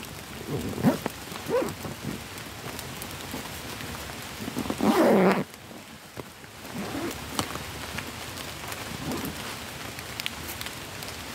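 Steady rain falling in woodland, with a backpack's zip pulled closed in a few short rasping strokes, the longest and loudest about five seconds in.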